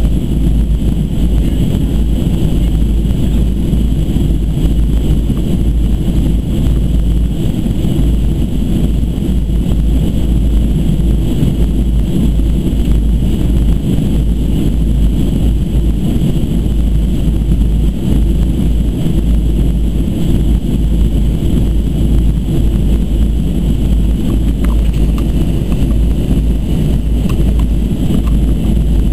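Steady cabin noise inside a Boeing 737-200 Advanced in flight: its Pratt & Whitney JT8D turbofans and the airflow make a loud, even low rumble, with a fainter high hum above it.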